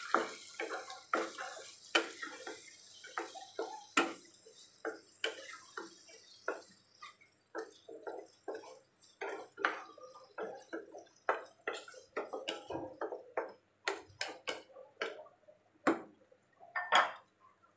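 Wooden spatula stirring diced potatoes in a pan of chicken curry, knocking and scraping against the pan about twice a second in an uneven rhythm.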